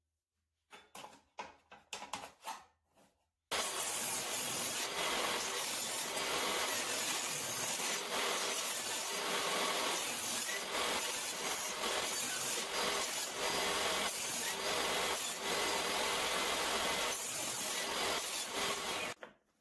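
A few light wooden knocks from small blocks being handled. A few seconds in, a jobsite table saw cuts in abruptly and runs steadily, resawing small wooden blocks into quarter-inch-thick blanks, until it stops near the end.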